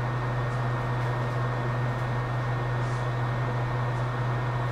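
Steady electric fan noise with a constant low hum, unchanging throughout.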